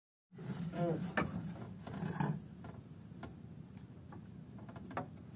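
Scattered light ticks and knocks at an uneven pace, with a brief faint voice about a second in.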